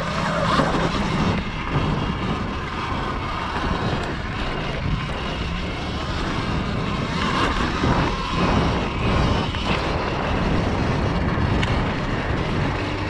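Off-road vehicle riding a dirt trail: a motor runs steadily under loud, even wind and trail noise on an action-camera microphone.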